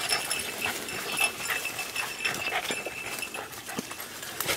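Small hunting dog growling, guarding a shot rabbit from its handler.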